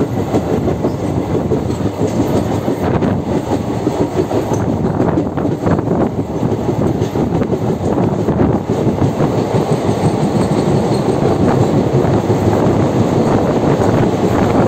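Indian Railways passenger train running, heard from an open coach doorway: a steady rumble of wheels on track with some clatter, getting slightly louder toward the end.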